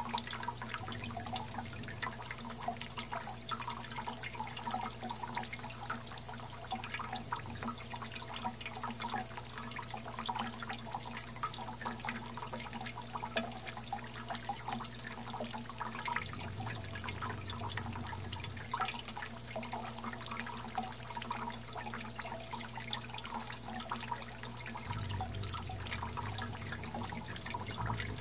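Water jets of a small hummingbird fountain splashing and dripping in a steady patter of falling drops, with a low steady hum underneath.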